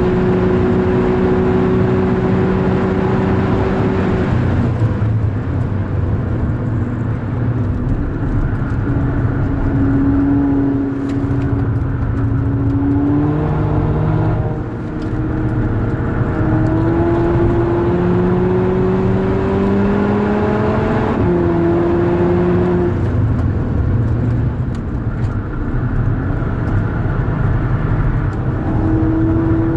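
Volkswagen Golf 6R's turbocharged 2.0-litre four-cylinder engine under hard acceleration on a racetrack. The pitch climbs steadily, drops back abruptly and climbs again several times as the car goes through the gears and lifts for corners.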